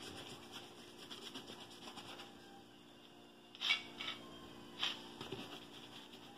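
A small brush rubs shoe polish onto a leather boot with faint, quick strokes. A little over halfway come three sharp clicks as the brush is knocked against the open metal tin of polish.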